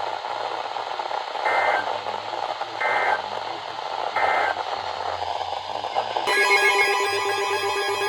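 Weather-radio static with three short, identical two-tone data bursts about 1.3 s apart: the end-of-message code that closes an EAS weather alert. About six seconds in, music-like tones start abruptly.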